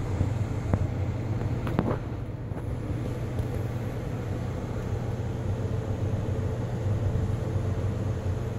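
Steady low rumble and hiss of a night rainstorm outdoors, with a few faint clicks in the first two seconds.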